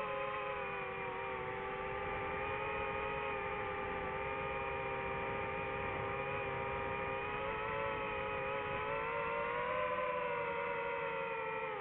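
DJI FPV drone's motors and propellers whining steadily in flight. The pitch drifts slightly up and down as the throttle changes.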